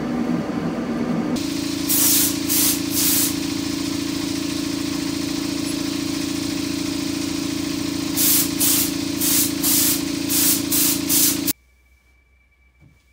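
Short blasts of compressed air from an air blow gun, three in quick succession and then a run of about seven more, over a steady motor hum; the air blowing is dust being blown off the masked bodywork before sealer. Everything cuts off abruptly near the end.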